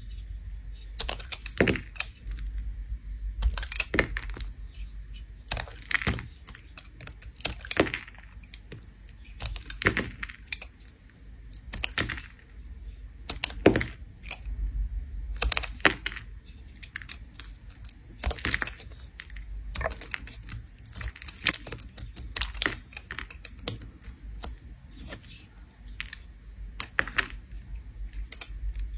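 A blade scraping a bar of soap, shaving it in repeated crisp, crackling strokes about every two seconds.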